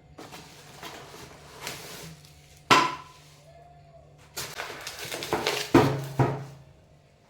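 Handling and unpacking of new kitchen storage canisters: rustling and shuffling, a sharp clink with a brief ring about three seconds in, then more handling with two knocks near the end.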